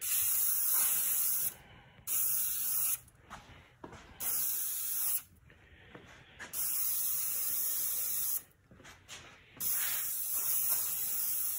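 High-output aerosol spray paint can spraying gray paint onto a plastic console, a hiss that comes in about five bursts of one to two seconds with short pauses between passes.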